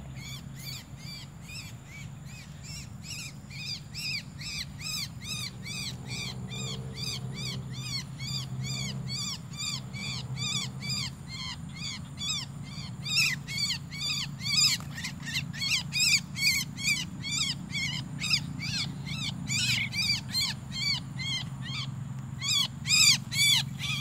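Javan mynas (jalak kebo) stuck on a wet-glue trap, giving harsh calls over and over, several a second. The calls grow louder and come faster about halfway through and are loudest near the end, as one bird is picked up by hand.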